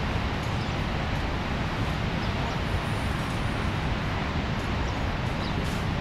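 The Rhine Falls, a large waterfall: a steady, unbroken rush of falling water, heaviest in the low range. A few faint, short, high chirps sound over it.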